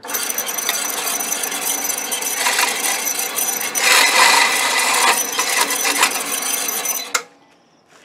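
Bandsaw running and cutting into a steel door-closer arm, with a steady high whine. It is louder in two stretches in the middle as the steel is fed into the blade, and the saw stops shortly before the end.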